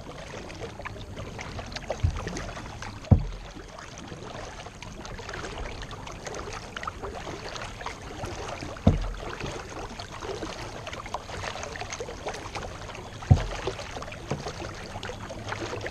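A kayak being paddled: the paddle sloshes and drips in the water, with about five low thumps spaced unevenly through it.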